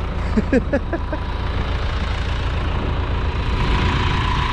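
Farm tractor engine running steadily while it drags the hide off a cow carcass.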